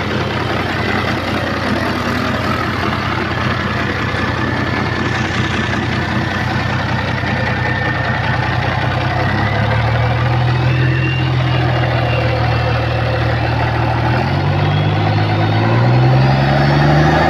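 A large used truck engine, out of its vehicle, running steadily after start-up and then revved: its speed rises about ten seconds in and climbs again in a few steps near the end.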